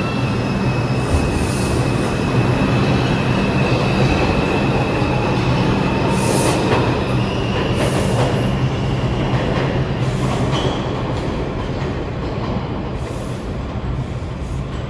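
A New York City subway train running through the station with a steady rumble and low motor hum. A thin, high wheel squeal sounds through the first half, and a few short hisses come later on.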